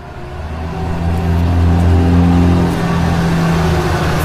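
Dump truck engine running with a low, steady rumble that grows louder over the first two seconds, then cuts off suddenly near the end.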